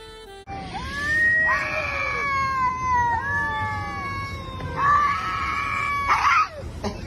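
A cat yowling in long, drawn-out wavering calls that slide down in pitch, several of them overlapping and starting again one after another.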